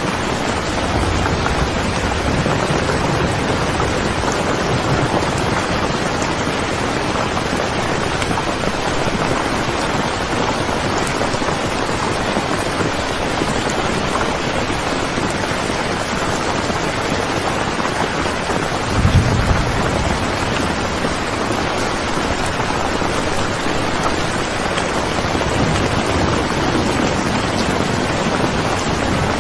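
Steady, heavy rainfall, an even hiss of falling rain. About two-thirds of the way through, a short low rumble swells up over it for about a second.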